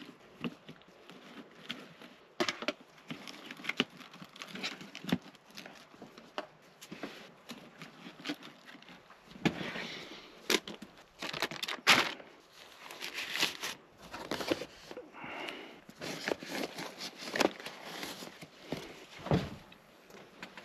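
Rustling and crinkling with scattered knocks and clicks: someone handling things at close range in a cramped space, with no steady machine sound.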